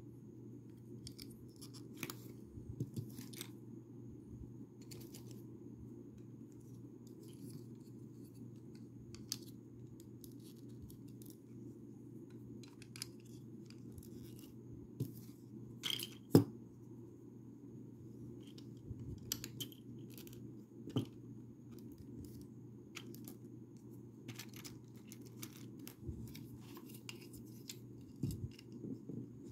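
Plastic Lego bricks clicking and ticking as pieces are handled and snapped together, at irregular intervals, the loudest a sharp click about sixteen seconds in, over a steady low hum.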